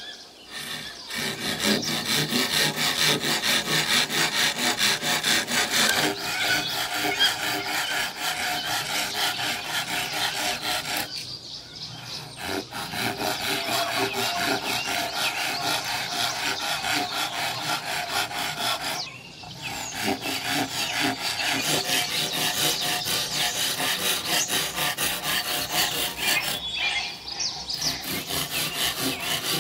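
A hand tool scraping at wood in fast, continuous strokes, stopping briefly three times.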